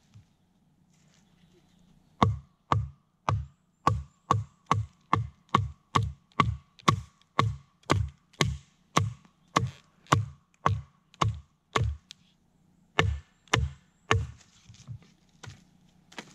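Machete blade chopping into wood: about twenty quick, evenly spaced strikes at roughly two a second, then after a short pause three more strong chops and a few lighter ones, as a knotty softwood piece is cut down to size.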